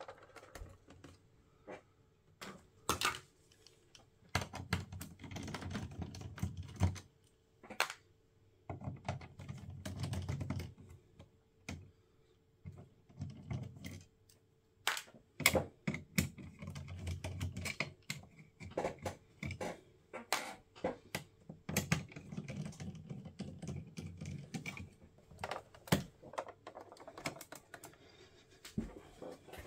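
Handling noise from the opened plastic-and-metal chassis of a Sharp GF-9494 boombox: irregular sharp clicks and knocks as it is lifted and turned over, with low rubbing sounds every few seconds as it shifts on the bench.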